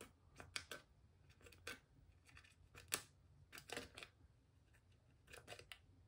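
Scissors snipping slits into a strip of clear transfer tape carrying adhesive vinyl: a series of short, quiet snips at irregular intervals.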